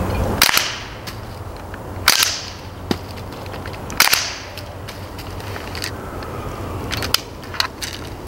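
Umarex Steel Strike CO2-powered BB rifle firing: three loud sharp shots about two seconds apart, each followed by a short hiss-like tail, then a few fainter sharp pops near the end.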